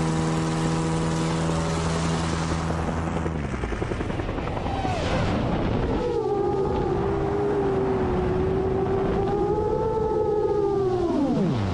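Light propeller aircraft's engine changing power. The engine note drops about three and a half seconds in, rises again and holds steady, then falls steeply near the end as the throttle comes back.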